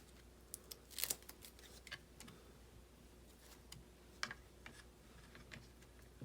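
Faint, scattered clicks and taps of small plastic RC car kit parts being handled and fitted together by hand, with a cluster of clicks about a second in.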